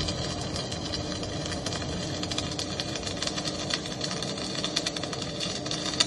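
Electric arc welding: a steady, dense crackle over a low steady hum.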